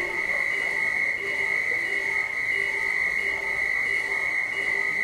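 Electronic end-of-game sounder sounding a continuous high-pitched tone, with a lower beep pulsing about every two-thirds of a second beneath it: the signal that game time has run out.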